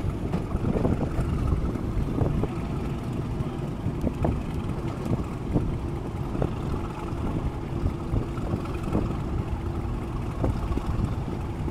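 English Electric Class 37 diesel locomotive D6700, with its V12 engine, working hard under load, heard from an open carriage window as a steady low running noise with wind buffeting the microphone. Scattered sharp clicks from the wheels on the track run through it.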